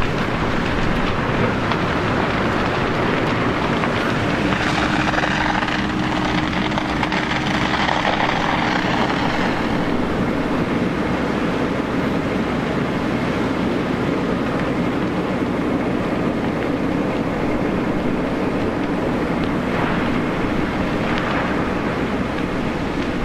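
A steady, loud engine roar, with a steady hum setting in about four seconds in and a whooshing sweep from about five to ten seconds in.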